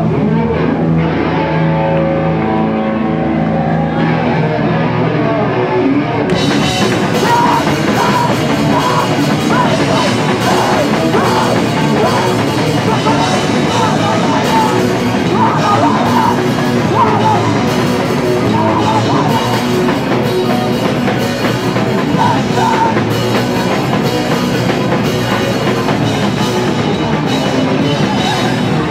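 Live rock band playing loud with electric guitar and drum kit. Held notes ring for the first few seconds, then about six seconds in the drums and cymbals come in and the full band plays.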